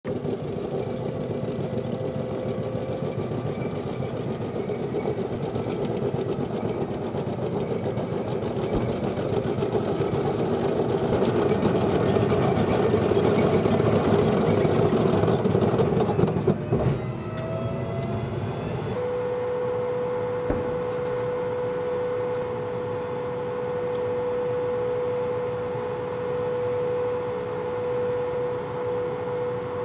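M1A1 Abrams tanks running: a dense mechanical rattle and rumble of engine and tracks that grows louder toward the middle. After an abrupt change about seventeen seconds in, it gives way to a steadier running sound with one constant held tone.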